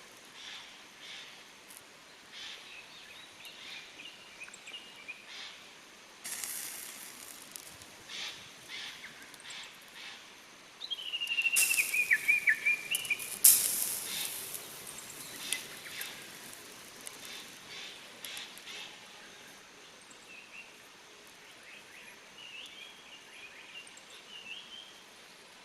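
Charcoal grill fire crackling and popping, with two stretches of loud hissing, about six seconds in and from about eleven to fourteen seconds in. Forest songbirds sing throughout, one with a held whistle that drops into a falling warble near the middle.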